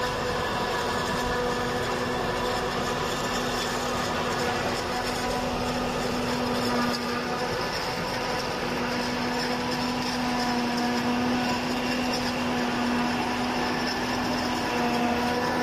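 Crawler-type self-propelled silage harvester running steadily, its diesel engine holding a constant pitched hum over the noise of the machine working.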